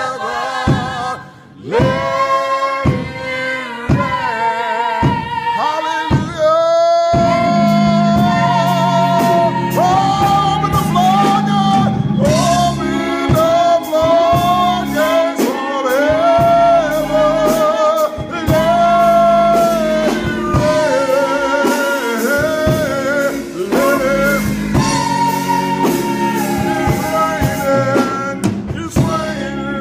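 Gospel song: a singing voice with vibrato over a steady beat. About seven seconds in, instruments come in with sustained chords underneath, and the singing carries on to the end.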